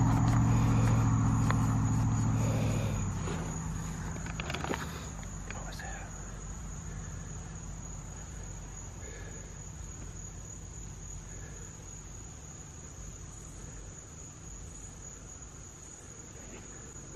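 Crickets and other night insects chirping steadily at a high pitch. A low engine-like hum fades away over the first few seconds.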